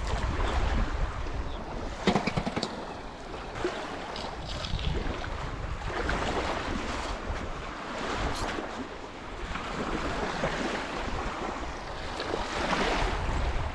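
Small lake waves washing in and out on a rocky beach, swelling every couple of seconds, with wind rumbling on the microphone and a few short clicks of stones knocking together.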